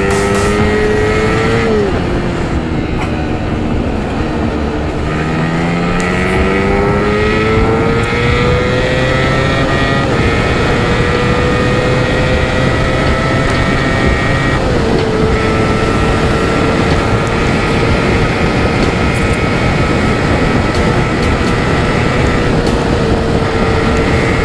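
Yamaha MT-15's single-cylinder engine pulling hard, heard from the rider's seat: the revs drop at gear changes, about two seconds in and again about fifteen seconds in, and climb as the bike accelerates between them, then hold steady at cruising speed. A steady rush of wind and road noise runs under the engine.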